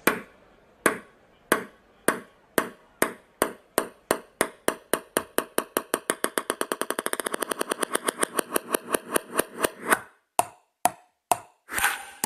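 Ping-pong ball bouncing with short ringing clicks. The bounces speed up into a rapid rattle around the middle, then slow and space out again near the end.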